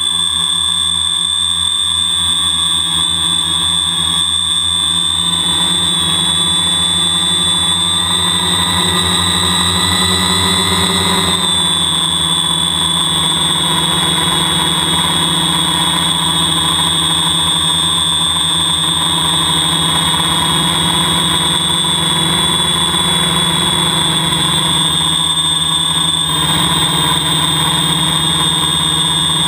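Homebuilt drone's motors and propellers whining steadily in flight, heard close up from the camera on board. The pitch shifts slightly about eleven seconds in.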